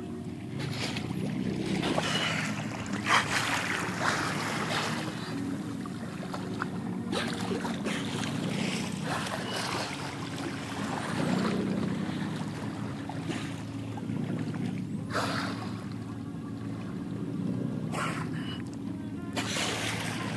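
Boat engine running steadily, with water rushing past the hull and swelling in several bursts of splashing.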